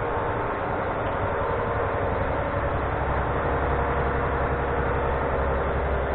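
Steady machine noise with a low hum that grows stronger about two and a half seconds in.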